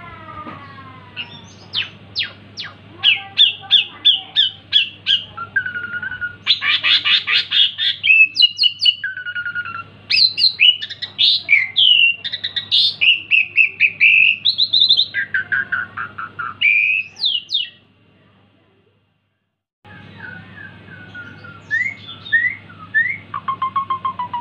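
Jalak suren (pied starling) singing at full voice: a fast, varied jumble of chattering notes, rising and falling whistles and short squawky phrases, over a faint steady low hum. The song stops abruptly about 18 seconds in and starts again about two seconds later.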